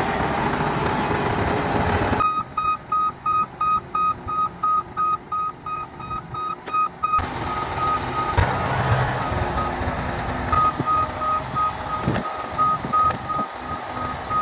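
Caterpillar D10T bulldozer's diesel engine running while a backup alarm beeps steadily, about three beeps a second, starting about two seconds in.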